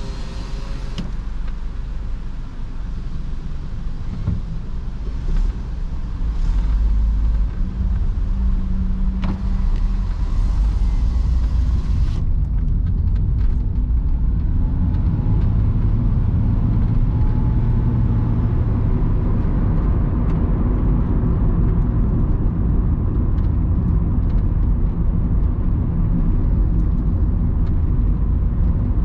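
Inside the cabin of a moving Honda Capa 1.5 automatic: the engine running with tyre and road noise. It gets louder about six seconds in as the car picks up speed, then holds steady.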